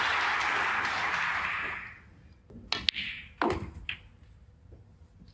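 Arena audience applauding, dying away about two seconds in, followed by a few sharp clicks and knocks.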